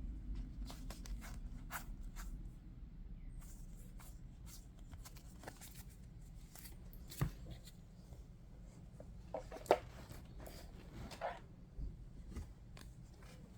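Yu-Gi-Oh! trading cards being handled and leafed through: soft rustling and scattered light clicks of card on card. There are a few sharper taps about halfway through and later, over a low steady room hum.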